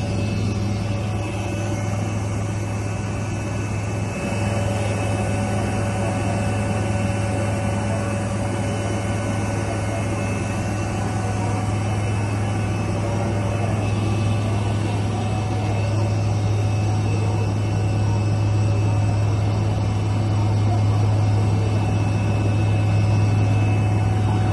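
Helicopter running steadily: a constant low drone with several steady whining tones above it, getting slightly louder in the last few seconds.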